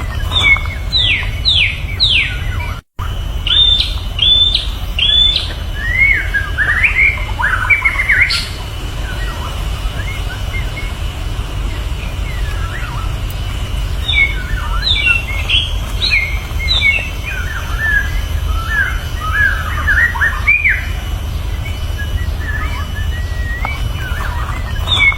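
White-rumped shama (murai batu) singing varied whistled phrases, including runs of quick falling whistles, with short pauses between them. A steady low rumble runs underneath, and the sound drops out for an instant about three seconds in.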